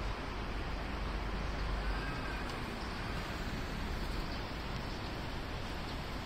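Steady outdoor city background noise with a low rumble of wind on the microphone, without distinct events.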